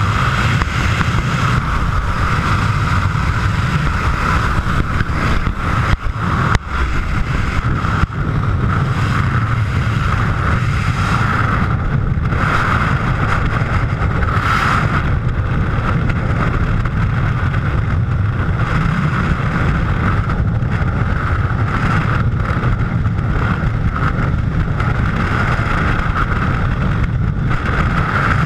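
Steady loud rush of wind buffeting a skydiver's helmet camera: the noise of the jump plane's cabin and open door at the exit, then the airflow of freefall. A couple of brief dips come about six to eight seconds in.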